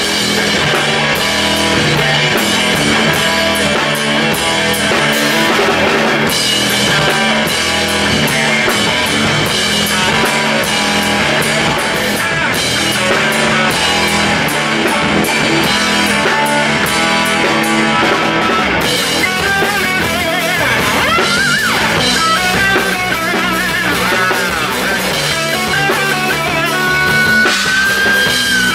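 Rock band playing: electric guitar over a drum kit. The drums hit densely at first and thin out about two-thirds of the way through, where the guitar plays bending, sliding lines ending on a held high note.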